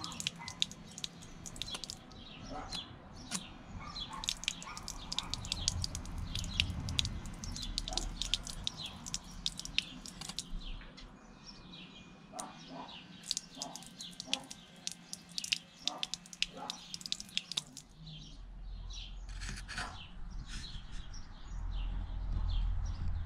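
Small birds chirping again and again, with a faint steady hum underneath that stops about three-quarters of the way through. A low rumble rises near the end.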